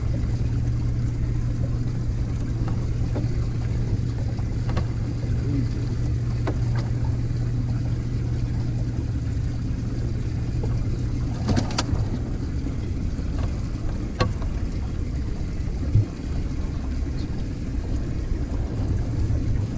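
Bass boat's outboard motor running at a steady speed, a continuous low hum with a few light knocks in the second half.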